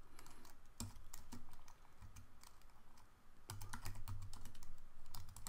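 Typing on a computer keyboard: a run of quick key clicks, with a short lull near the middle before the typing picks up again.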